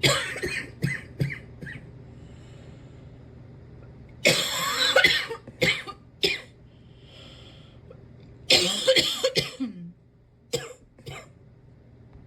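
Repeated coughing fits from a cough that is still hanging on: a run of short coughs at the start, longer bouts about four seconds in and again about eight and a half seconds in, and a few short coughs near the end.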